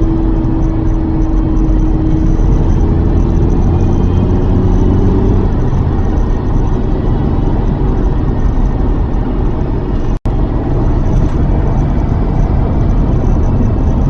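Lotus Carlton's 3.6-litre twin-turbo straight-six under way on the road, a steady loud drive with road noise. An engine tone eases lower and fades in the first few seconds. The sound cuts out for a split second about ten seconds in.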